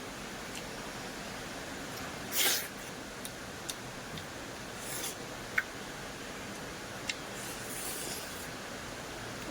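Person eating on a close microphone: a loud short breathy sniff or snort a couple of seconds in, softer breathy bursts later, and a few small clicks of food and utensils against a steady background hiss.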